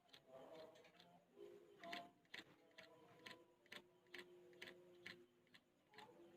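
Yellow-vented bulbul nestlings begging to be fed: faint, short, sharp chips repeated about twice a second.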